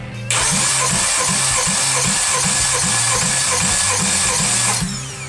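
Kia G4KE 2.4-litre four-cylinder engine being cranked over for a compression test on the first cylinder, a steady mechanical whirr with a regular pulse about three to four times a second. The cranking starts just after the beginning and cuts off shortly before the end.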